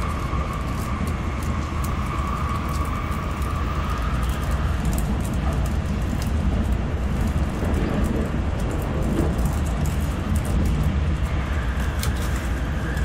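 Tokaido Shinkansen running at speed through a station, heard from inside the passenger cabin: a steady low rumble and rushing noise with small ticks, and a high whine over the first few seconds that then fades.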